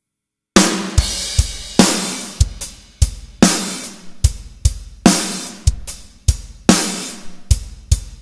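Superior Drummer 3 virtual rock drum kit playing a groove, starting about half a second in: kick drum, snare and cymbal hits.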